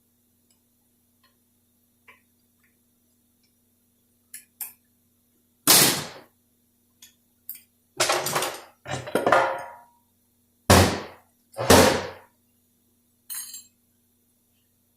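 Metal transmission parts and tools of a Dodge 46RE teardown clanking and knocking as they are handled and set down: about five loud clanks between six and twelve seconds in, with a few lighter clinks around them.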